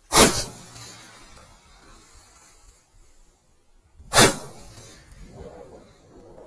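Shotgun fired twice at close range, two sharp shots about four seconds apart.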